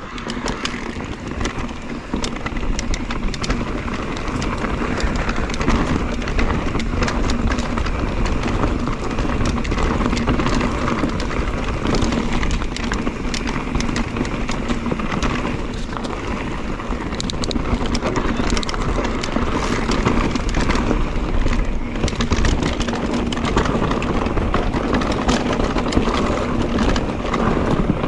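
Mondraker Crafty electric mountain bike ridden over a rough, stony trail: tyres running over rocks, with many sharp clicks and rattles from the chain and frame. The drive motor's steady hum runs underneath.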